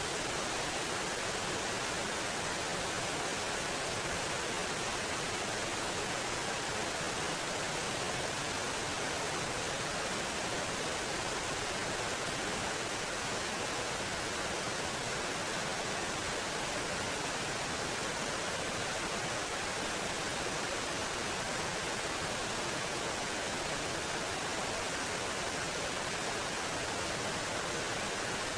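Small waterfall splashing over boulders into a shallow rocky pool: a steady, even rush of falling water.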